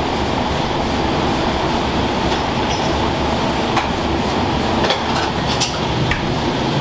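Steady loud kitchen roar with a few sharp clicks about four to six seconds in.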